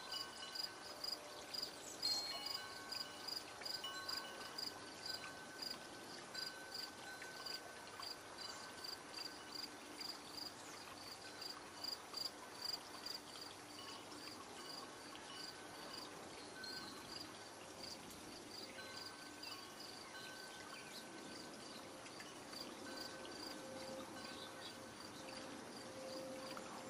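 A cricket chirping steadily, about two short high chirps a second, with wind chimes ringing softly now and then.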